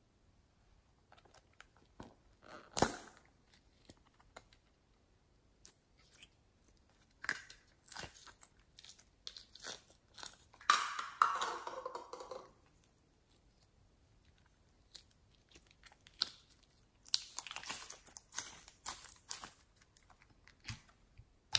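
Pink slime being pulled and peeled out of a clear plastic shell-shaped case by hand: sticky crackling and squelching, with sharp plastic clicks from the case, the loudest one about three seconds in.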